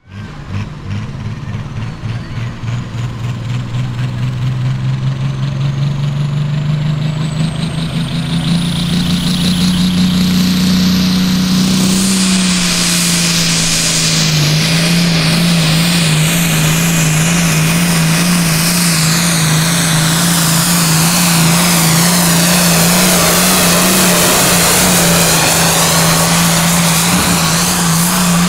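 Diesel pulling tractor's engine under full load, revving up as it launches with the weight-transfer sled. Its pitch and a high whine climb for about twelve seconds, then it holds a steady, slightly wavering high pitch, running flat out as it hauls the sled down the track.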